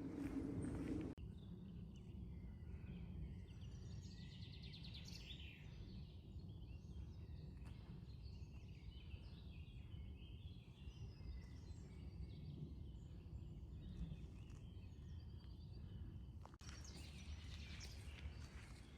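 Small birds chirping and singing in many short calls over a low steady rumble. A louder low hum cuts off about a second in. Near the end the sound changes to footsteps crunching on a path.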